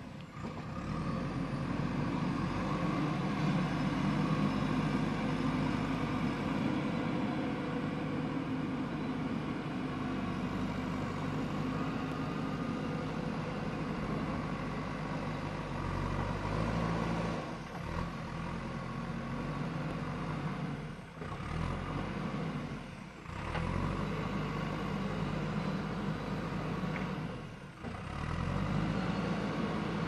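JCB backhoe loader's diesel engine running steadily under working load as the machine drives and works its front bucket in loose soil. The sound dips briefly a few times.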